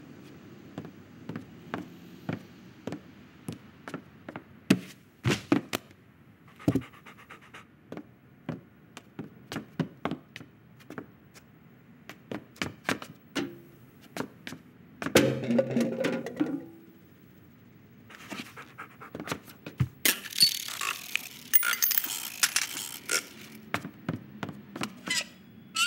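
Animated-film sound effects without music or dialogue: a string of sharp taps and thuds, a louder low rumbling burst about fifteen seconds in, and a hissy, rattling burst about twenty seconds in.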